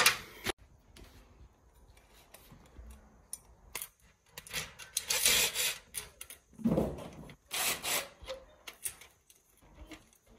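Parts of a car roof luggage basket being handled and fitted together: rubbing and scraping in several bursts, with quiet gaps between and the loudest stretch in the second half.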